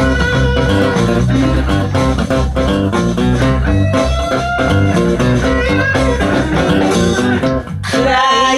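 Steel-string acoustic guitar played in a blues style, a rhythmic instrumental passage of chords over a moving bass. Near the end a man's voice comes back in singing.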